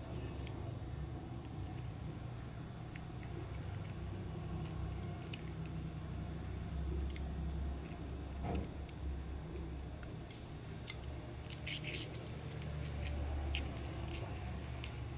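Scattered light clicks and rattles of small hard parts being handled, with a few quick clusters near the end, over a low steady hum.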